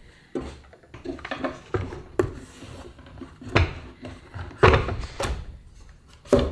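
Bamboo knife-drawer insert loaded with wooden-handled knives being set down and fitted into a wooden kitchen drawer: a series of separate wooden knocks and clunks, the loudest a little past the middle and just before the end.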